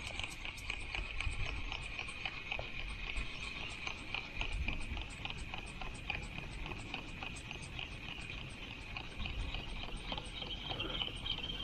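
Spinning reel being cranked steadily to work a jig, giving a continuous whirring with evenly spaced rapid ticks.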